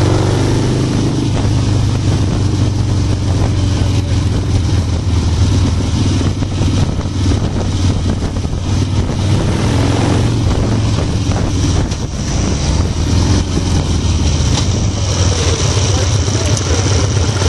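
Harley-Davidson Low Rider's V-twin engine running on the move, picked up by a camera on the bike's frame as a steady low drone. The level dips briefly about twelve seconds in.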